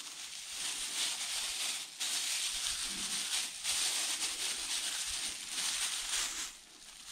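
Dry grass rustling as it is rubbed and twisted between the hands, working it into a tinder bundle, with a few short pauses.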